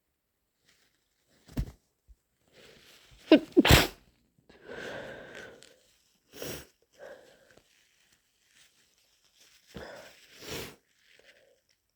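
A person with a developing head cold sneezing: quick catching breaths rising in pitch lead into one loud, wet sneeze about four seconds in. After it comes a longer breathy, snotty stretch, and further short sneeze-like bursts follow, two of them near the end.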